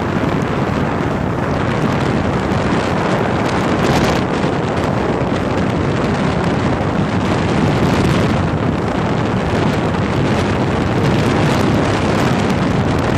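Steady wind noise buffeting the microphone over the jet ski's engine and the rush of water as it runs under way across choppy water.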